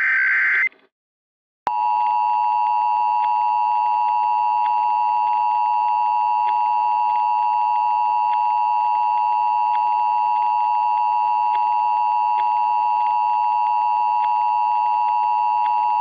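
Emergency Alert System tones. The end of a screechy digital SAME header burst, a second of silence, then the steady two-tone EAS attention signal held for about fifteen seconds, the tone that announces a new alert message.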